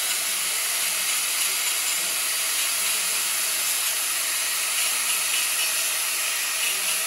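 Angle grinder with a cutting disc running steadily as it cuts through thin tin sheet, giving one unbroken, even noise with no pauses.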